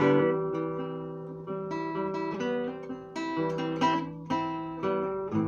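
Classical nylon-string acoustic guitar played fingerstyle, unaccompanied: a run of single plucked notes and chords, each ringing and fading, over held bass notes.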